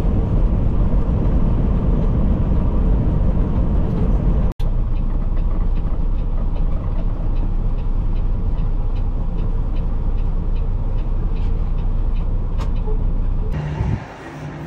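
Peterbilt 389 glider semi truck driving down the road: a steady low engine and road rumble. It breaks off for an instant about four and a half seconds in, and gets quieter near the end.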